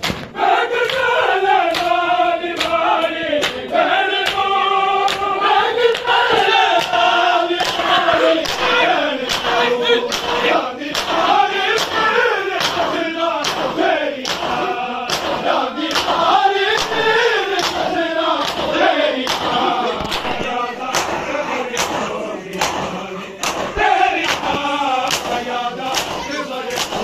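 Men's voices chanting a mourning lament together in chorus, with sharp hand slaps on bare chests beating a steady rhythm under the singing: a Shia matam.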